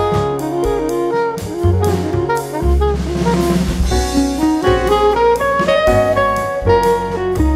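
Background music: a jazzy tune with a melody moving over bass notes and a steady drum beat.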